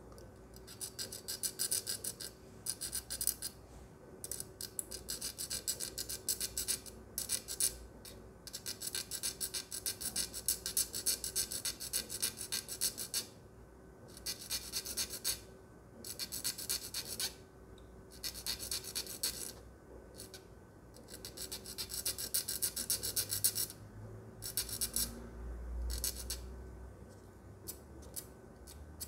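Small hobby file rasping against a plastic model-kit part still on its sprue, cleaning it up. The filing comes in runs of quick back-and-forth strokes broken by short pauses.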